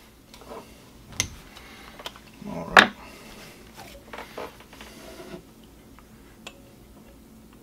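Gloved hands handling a glass measuring cup of melted plastisol and a metal bait injector on a bench. There are a few knocks and clinks, the loudest about three seconds in, with light handling noise between them.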